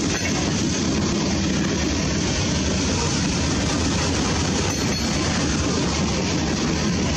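Loaded coal train rolling past, its hopper cars' steel wheels on the rails making a steady, loud rumble.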